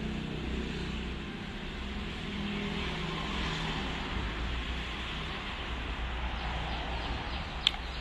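Steady outdoor rumble of distant road traffic, with a single short click near the end.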